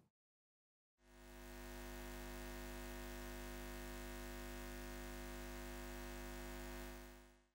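A steady electronic drone of many held tones, fading in after about a second of silence and fading out near the end.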